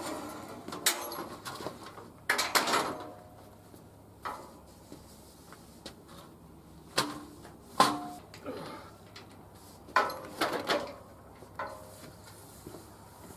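Welded aluminum dock frame being handled and stood on edge: a string of irregular knocks and clanks of the tubing, some with a short metallic ring, the loudest just before the eighth second.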